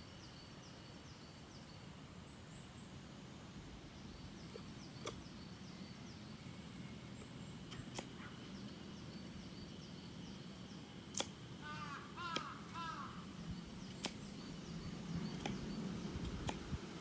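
Small birds chirping and calling in short repeated phrases, with a burst of quick warbling calls about two thirds of the way through. Scattered sharp clicks or snaps come over a steady low background.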